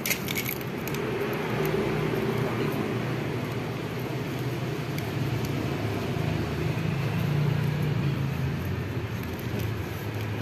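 Yamaha Vega R New motorcycle's single-cylinder four-stroke engine running at a steady idle through a racing exhaust, the engine speed rising a little about seven seconds in and then settling back.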